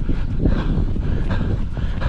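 A runner's footsteps at a steady running rhythm, about two to three footfalls a second, under a constant wind rumble on the body-worn camera's microphone.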